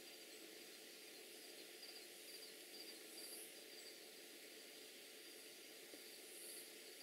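Near silence: a steady hiss, with faint insect chirping in a pulsed, repeating pattern.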